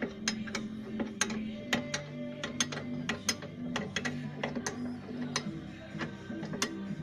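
Ratchet wrench clicking in sharp, irregular bursts while undoing bolts on the rear brake assembly. Background music plays underneath.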